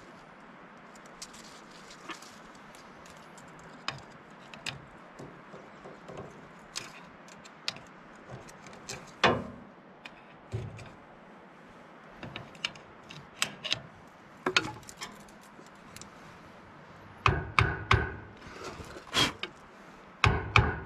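Hand tools clinking and knocking against metal as wrenches and sockets are picked up and set down on a dozer track during a hydraulic cylinder rebuild. The clinks are scattered and irregular. Near the end comes a quicker run of louder, ringing knocks.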